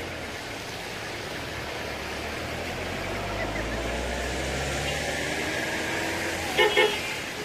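Road traffic noise with a vehicle's engine rumbling past, then two quick car-horn toots near the end.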